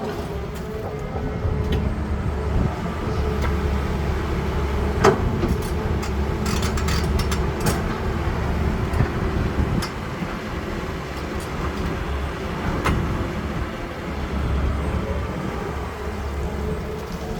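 CAT 320D excavator's diesel engine running steadily with a low rumble, with a sharp knock about five seconds in and scattered lighter clicks and clanks from the machine at work.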